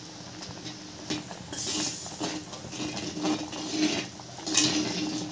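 Metal spoon stirring and scraping in a pot of thick, boiling moong dal payasa. Irregular scrapes and clinks against the pot start about a second in.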